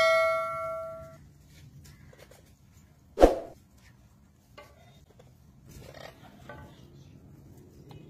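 Bell-like notification chime, the sound effect of a subscribe-button animation, ringing and fading away over about a second. A single short, loud, sharp sound follows about three seconds in.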